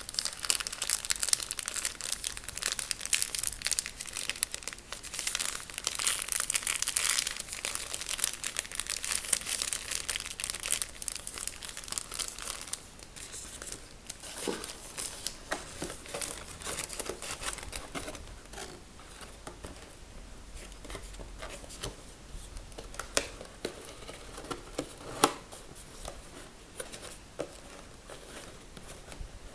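Packaging crinkled and torn, a dense crackling for the first twelve seconds or so, then thinning to scattered crackles and a few sharp clicks.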